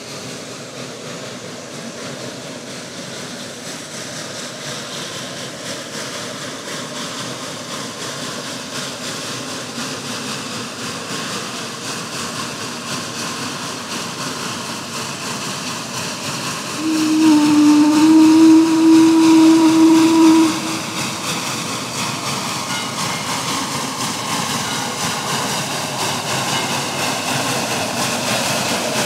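Narrow-gauge geared steam locomotive drawing closer, its running noise growing slowly louder. About seventeen seconds in comes one steam whistle blast of about three and a half seconds, the loudest sound.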